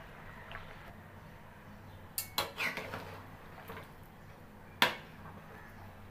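Metal spatula knocking and scraping against a metal cooking pan while stirring a pan of curry: a couple of sharp clinks just after two seconds in, and one louder clink near five seconds in.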